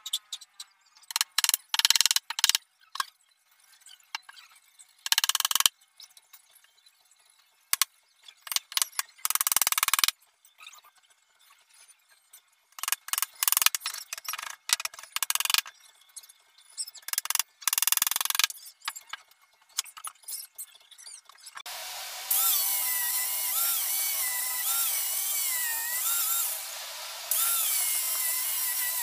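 Irregular short bursts of noise, each under a second, from hand work on a plywood box. About two-thirds of the way in, an electric angle grinder fitted with a sanding disc starts running steadily on plywood, its whine wavering, with a brief dip near the end.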